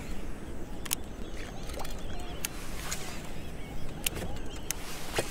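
Wind rumbling on the microphone and water lapping against a plastic kayak hull, with about five sharp clicks spread through the stretch.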